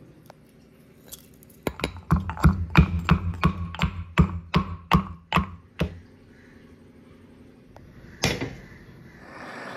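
Pestle pounding in a heavy black mortar, crushing cardamom pods and fennel seeds: about a dozen sharp knocks at roughly three a second. A couple of seconds later, a single ringing clank as a stainless steel pan is set on the gas stove.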